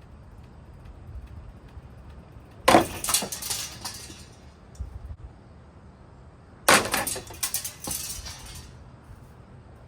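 Hugger ceiling fan being smashed apart: two bursts of rattling, clattering strikes about four seconds apart, over a low steady hum.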